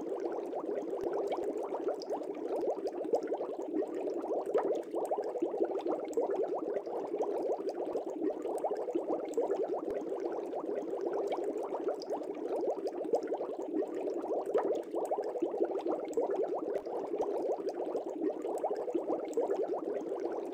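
Aquarium water bubbling steadily: a dense, unbroken stream of small bubbles popping and gurgling.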